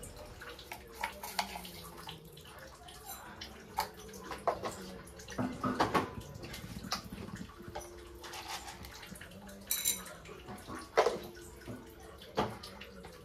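Oil faintly sizzling in a kadai, with scattered irregular pops and crackles: a tempering of mustard seeds, urad dal, curry leaves and green chillies frying in hot oil.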